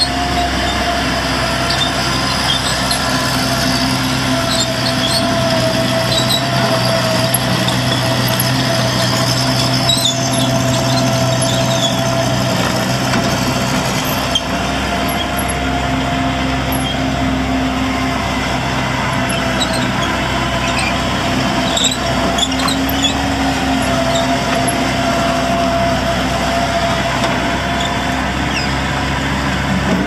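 Bobcat MT85 mini track loader's diesel engine running steadily under a constant whine while the machine drives on its rubber tracks, with scattered small high squeaks.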